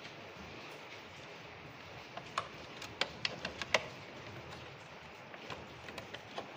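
A quick series of light, sharp clicks and knocks, bunched about two to four seconds in, over steady low background noise.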